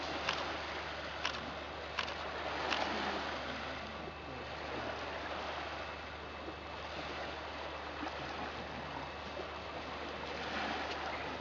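Steady rushing of surf on a beach at night, with a few sharp clicks in the first three seconds.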